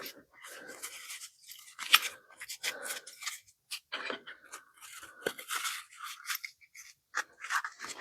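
Small tools and odd pieces being handled at close range: irregular rustling, scraping and light clicks, with one sharper click a little under two seconds in.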